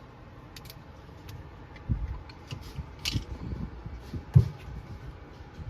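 Handling noise: a few dull knocks with light rubbing and scraping between them, the loudest knock about four and a half seconds in.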